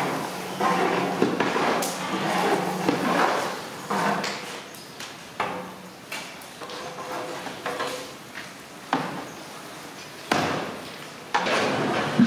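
Long-handled metal ladle scraping and knocking against a large metal cooking pot as a thick chicken curry is stirred, in irregular strokes.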